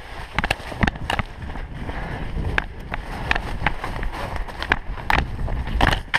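Running footsteps through dense undergrowth, with leaves and branches swishing past in quick irregular rustles, over a low rumble of wind on the microphone.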